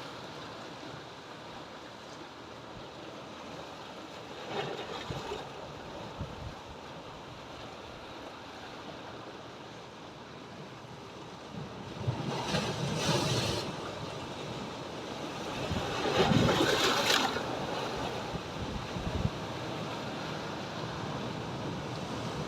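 Sea waves breaking on rocks: a steady wash of surf with louder breakers crashing about four seconds in, about twelve seconds in, and loudest about sixteen seconds in.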